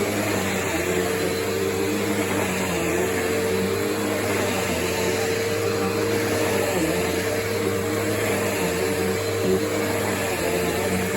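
Bissell PowerForce Helix Turbo bagless upright vacuum running at steady speed: a continuous motor and airflow drone with a constant whine over it.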